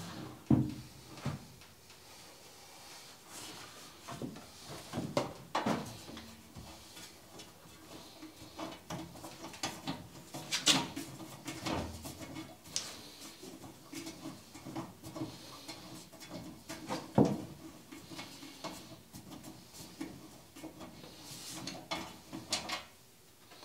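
Irregular knocks, clunks and light clatter of a benchtop machine being handled and shifted on a wooden workbench, with a couple of sharper knocks about 11 and 17 seconds in, over a faint steady hum.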